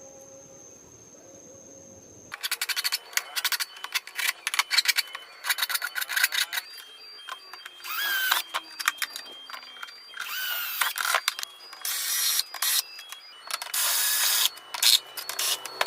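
Hand-tool work on wood: bursts of quick rubbing and scraping strokes with sharp clicks, starting after about two seconds of quiet.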